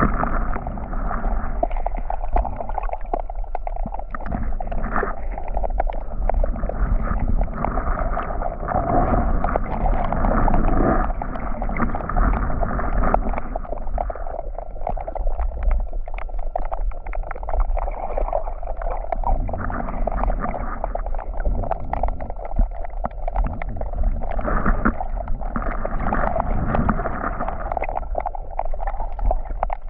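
Sea water washing on the beach, mixed with a steady wind rumble on the microphone, rising and falling in irregular swells.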